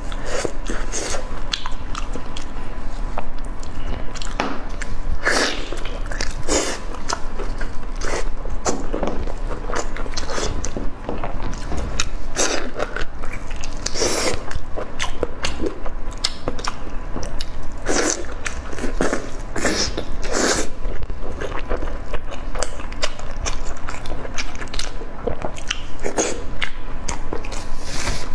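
Close-miked eating sounds: biting and chewing braised lamb ribs, with many irregular short sharp mouth clicks.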